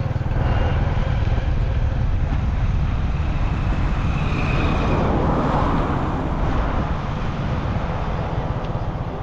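Motor vehicle engine running steadily with road noise, heard from on board while travelling along a road.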